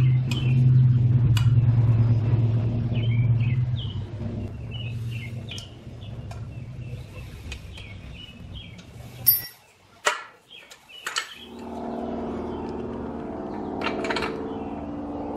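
Outdoor ambience: a low vehicle rumble that fades after about four seconds, with birds chirping. After a brief dropout about ten seconds in, a steady hum takes over, with a few light clicks near the end.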